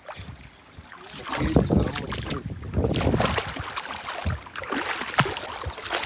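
Feet wading through shallow water and boggy mud, with irregular splashing and sloshing.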